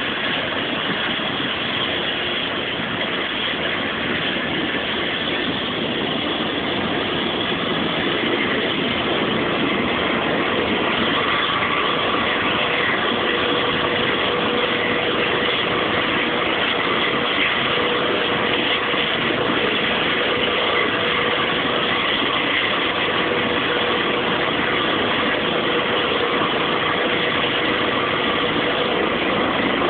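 Rescue helicopter's turbine engines running on the ground with the rotor turning, a steady noise that grows a little louder several seconds in as a steady whine joins partway through, ahead of lift-off.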